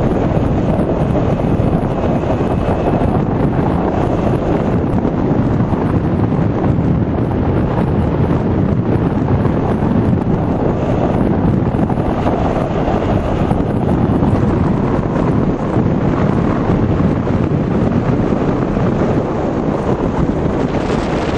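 Steady, loud wind rush buffeting the camera's microphone while riding an electric bike at speed.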